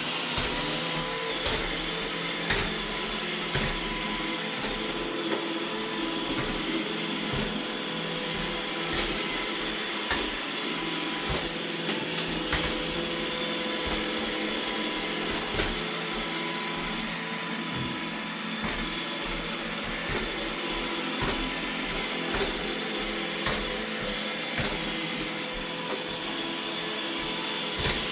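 iRobot Roomba E6 robot vacuum running steadily while it cleans, with a constant motor and brush hum and a few short clicks and knocks scattered throughout.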